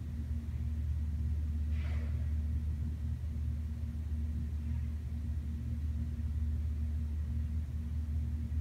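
Steady low mechanical hum, with a faint brief higher noise about two seconds in.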